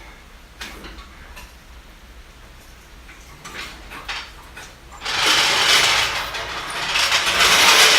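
A few light clicks and knocks, then about five seconds in a loud scraping, rattling clatter of metal gear being moved about, lasting about three seconds.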